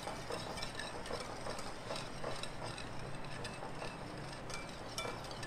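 Wire whisk beating cream and sugar in a bowl, a steady run of soft scraping and quick light ticks of the wires against the bowl as the sugar is mixed in to dissolve.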